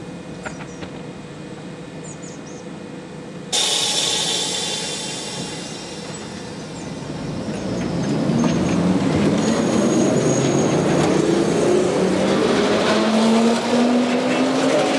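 Electric tram pulling away from a stop: a sudden jump in noise about three and a half seconds in, then the traction motor whine rising steadily in pitch as it accelerates.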